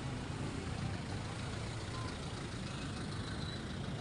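Steady low rumble of vehicle engines and street noise, with no distinct events.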